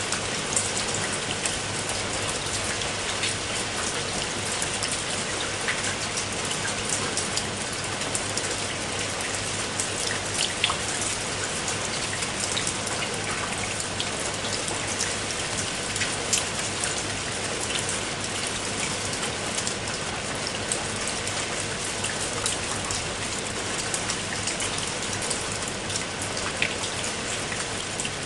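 Heavy rain falling steadily, a dense hiss with many distinct raindrop hits.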